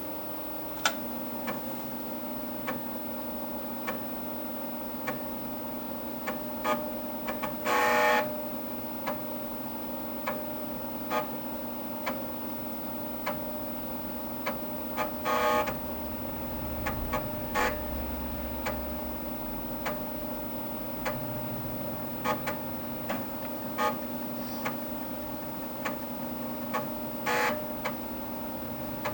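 Dimension 68000's floppy disk drive loading software: scattered head-stepping clicks and three short buzzing seeks, over the steady hum of the computer's fan and spinning drive.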